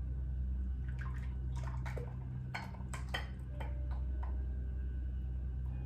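Light clinks and taps of kitchen utensils and dishes, about ten in three seconds, over a steady low hum.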